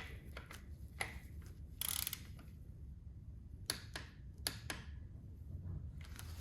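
Scattered sharp metallic clicks and knocks, irregularly spaced, from hand tools or parts being handled during motorcycle oil-change work, with a short hissing scrape about two seconds in.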